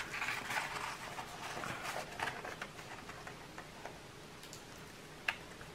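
Soft rustling and crinkling of a diamond painting canvas's protective paper being handled and peeled back from the adhesive, thinning out after two or three seconds, with one small click near the end.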